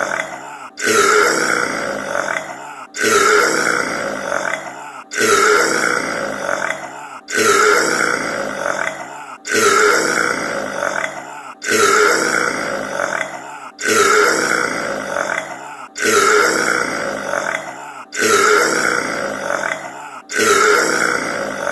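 A man's loud belch, repeated over and over as the same looped clip, about one every two seconds. Each belch starts abruptly and trails off before the next one cuts in.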